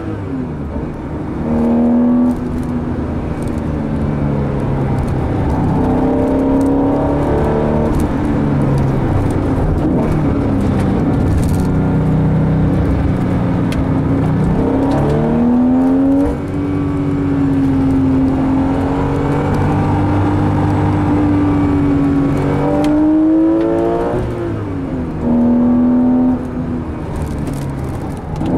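Porsche 911 Carrera 4's 3.6-litre flat-six engine heard from inside the cabin, revving hard up through the gears. Its pitch climbs and drops back at each manual gear change several times, then holds a steadier pitch while cruising for several seconds in the middle.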